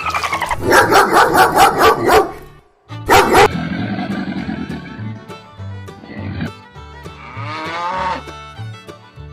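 Dog barking and vocalizing over background music, with a loud single bark about three seconds in and a call that rises and falls in pitch near the end.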